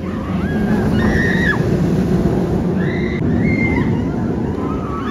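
Vekoma steel roller coaster train running on its track with a steady low rumble. Short high-pitched screams from riders come about a second in and again around three seconds in.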